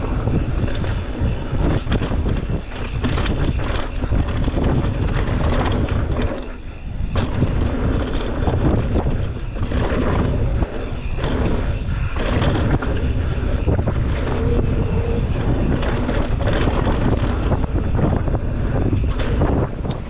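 Downhill mountain bike at speed on a rough dirt trail: tyre roar and rattling of chain and frame, with frequent knocks over bumps, under heavy wind noise on the microphone. It eases briefly about seven seconds in.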